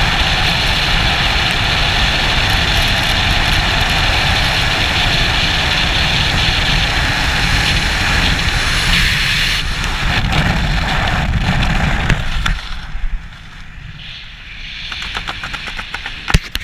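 Freefall wind rushing over a skydiver's helmet-mounted camera, loud and steady. About twelve seconds in it drops off suddenly as the parachute opens, leaving a much quieter, uneven flutter of air, with a few sharp clicks near the end.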